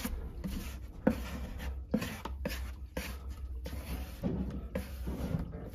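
Metal spackle knife scraping and smoothing joint compound over the seams of a drywall patch, in a series of short strokes roughly one or two a second.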